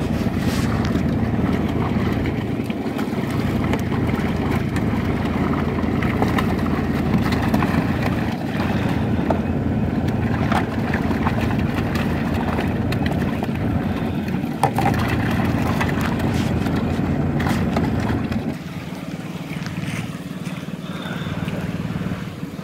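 Steady low motor hum from the fish-stocking truck, with water splashing and sloshing as trout are dipped into buckets. The hum drops away about three-quarters of the way through, leaving quieter outdoor sound.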